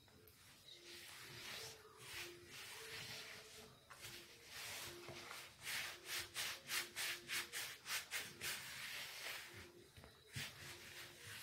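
A hand kneading and pressing a crumbly butter-and-starch biscuit dough in a bowl, a faint rubbing and scraping as the crumbs are squeezed together into a soft dough. About halfway through it becomes a quick run of regular strokes, three or four a second.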